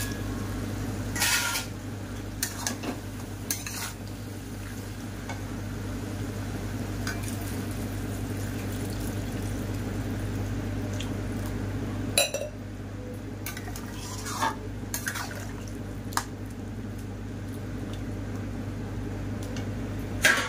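Metal spoon stirring a watery vegetable curry in a steel kadhai, knocking and clinking against the pan now and then, over a steady low hum.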